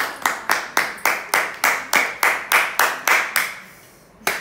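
Hands clapping in a steady rhythm, about four claps a second, stopping about three and a half seconds in, then one more clap near the end.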